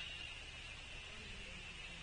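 Outdoor ambience: a steady, high-pitched chorus of calling animals, with a low hum beneath it.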